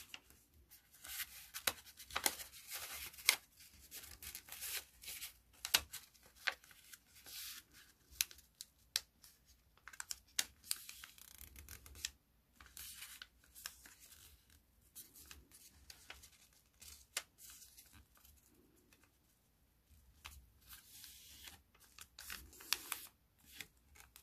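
A square of origami paper being folded by hand: soft crisp rustles and sharp paper ticks as the pocket is opened and pressed flat into a squash fold and the creases are smoothed down, with a quiet pause about three-quarters of the way through.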